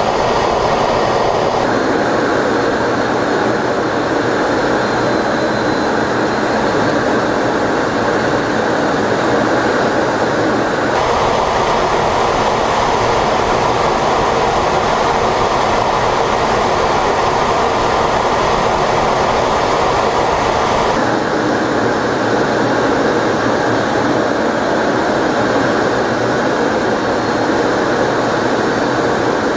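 Steady cockpit noise inside an F-15 Eagle fighter in flight, an even rushing sound with no distinct engine tone. Its character changes abruptly about two, eleven and twenty-one seconds in.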